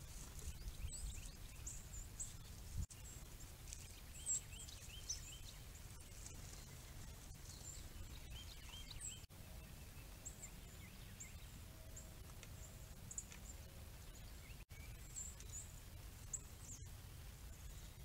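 Small songbirds chirping: short, high chirps scattered throughout, with a couple of quick runs of lower repeated notes, over a steady low rumble.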